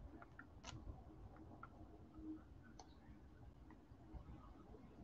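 Near silence with a few faint, scattered ticks from fingers tapping and handling a smartphone.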